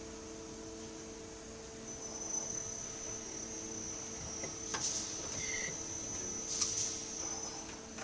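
Nakamura TMC20 II CNC lathe running: a steady hum, joined about a quarter of the way in by a high, thin whine, with two short knocks past the middle.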